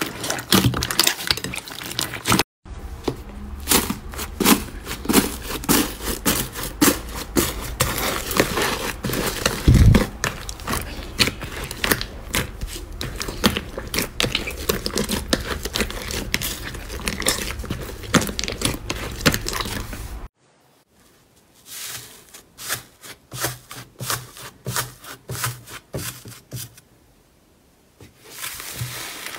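Hands squishing, kneading and stretching slime, with dense wet clicks, pops and crackles. The sound cuts abruptly about two and a half seconds in and again at about twenty seconds, after which it is quieter until the crackling grows louder near the end.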